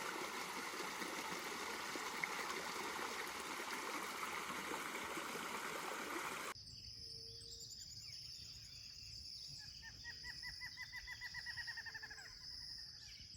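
Rainforest ambience: a steady rushing noise for the first half, then, after a sudden cut, a quieter forest background with a constant high insect whine and a bird's rapid trill of many short notes, slightly falling, lasting about three seconds near the end.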